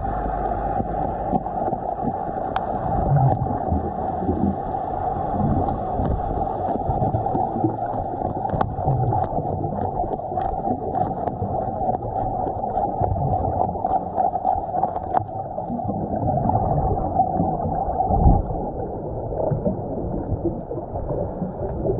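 Muffled underwater noise picked up through a camera's waterproof housing: a steady low rush of water with a few low swells and scattered sharp clicks.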